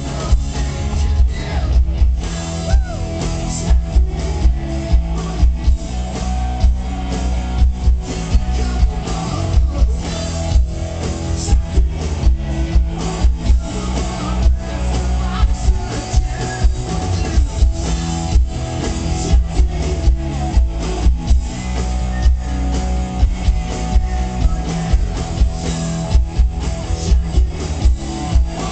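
Live rock band playing an instrumental stretch: electric guitar, bass and drum kit, with a steady beat of about two drum hits a second.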